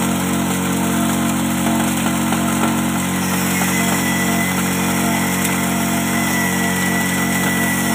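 Small electric-motor-driven chopper/grinder (mesin cacah) running steadily, with an even mechanical hum and a faint high whine above it.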